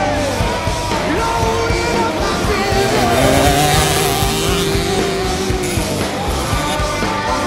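Rock music with singing and a steady beat.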